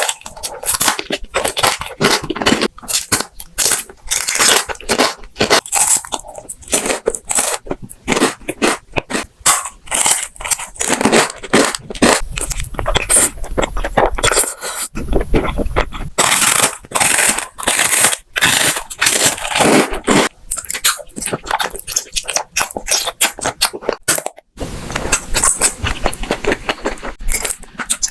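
Close-miked crunching and chewing of crisp food, a dense, continuous run of crackly bites and chews, broken only by a very brief gap about 24 seconds in.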